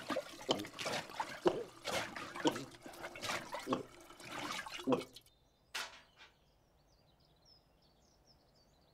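Water sloshing and dripping in irregular splashes for about five seconds, then it stops, leaving only a few faint high chirps.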